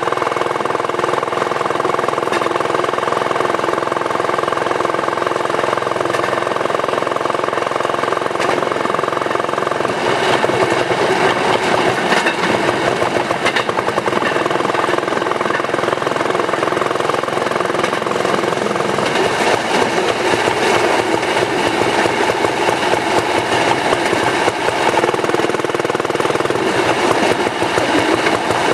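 Railway section car (speeder) running along narrow-gauge track: its engine runs steadily under a fast clatter and rattle of steel wheels on the rails. The sound gets louder and busier about ten seconds in.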